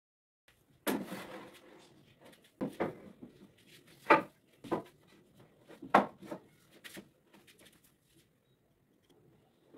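Solid timber posts knocking on wood as they are handled and set down on a workbench: a string of sharp wooden knocks and clunks, the loudest about four and six seconds in, with faint rubbing and shuffling between them.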